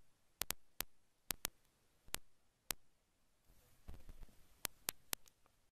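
About a dozen sharp, short clicks at irregular intervals, some in quick pairs, over faint background rustle.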